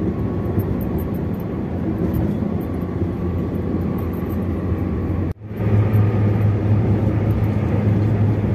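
Steady road noise inside a moving car on a concrete toll road: tyre and engine rumble. It breaks off for an instant about five seconds in, then comes back as a louder, steady low drone.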